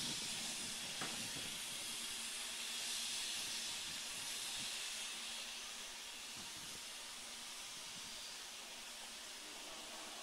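Steam locomotive giving off a steady hiss of escaping steam, easing off a little in the second half.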